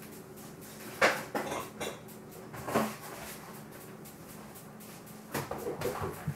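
Kitchen items being handled: a sharp knock about a second in, a few lighter knocks after it, then a run of clattering near the end.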